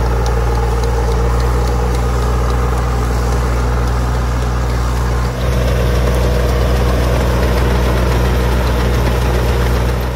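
Farm tractor's diesel engine running steadily under load while driving a Turbay rotary tiller whose rotor churns through the orchard soil. There is a brief dip in level about five seconds in.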